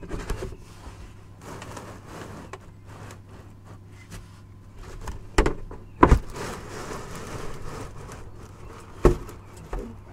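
Plastic oil drain pans being shuffled and slid across the ground under a car: scraping with a few sharp knocks, the loudest about five to six seconds in and again about nine seconds in.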